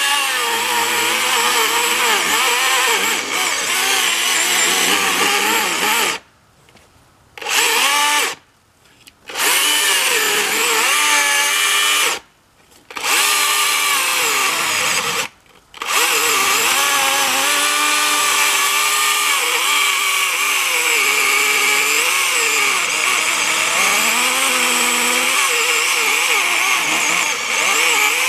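Husqvarna 120i battery-powered chainsaw cutting into a tree trunk, its motor whine dipping in pitch and recovering as the chain bites into the wood. The saw stops and starts again four times in the first half, each pause lasting about a second or less.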